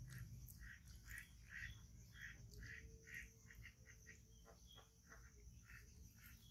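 Faint animal calls repeating in the background, about two a second, thinning out after about four seconds, with a few soft clicks shortly after.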